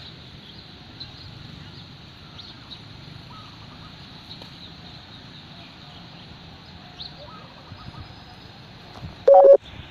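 An approaching diesel passenger train sounds one short, loud horn blast near the end, a steady mid-pitched tone lasting under half a second. Before the blast there is only a low, steady background hum.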